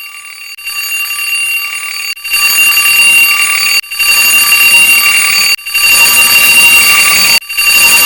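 Alarm clock sound effect stacked on itself many times over into a dense, harsh wall of ringing tones. It grows louder in steps over the first couple of seconds, then drops out for a split second about every two seconds before starting again.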